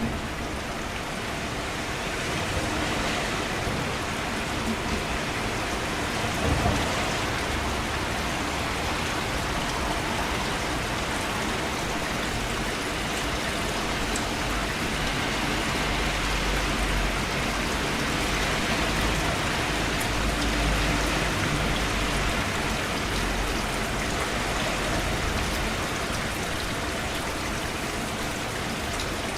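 Steady rain falling, an even hiss of many drops, with a brief louder patch about six and a half seconds in and a low rumble underneath through the middle stretch.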